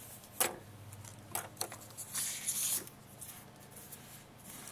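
Small scissors of a Leatherman Style multitool and a piece of cut paper being handled: a few light clicks, with a brief paper rustle about two seconds in.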